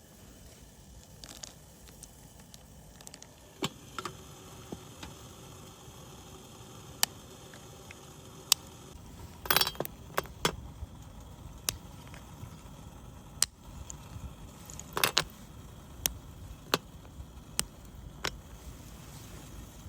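Scattered sharp clicks and light clinks at irregular intervals, bunching together twice, over a low steady rumble.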